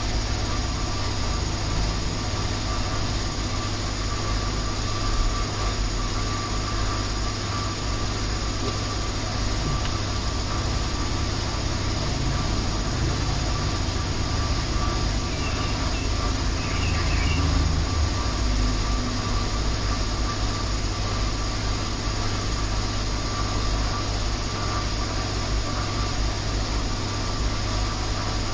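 Car engine idling with a steady low hum, during calibration of a freshly repaired and serviced CVT gearbox.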